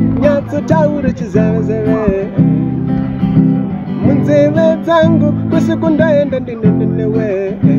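Acoustic guitar strummed in steady chords while a man sings a slow melody over it.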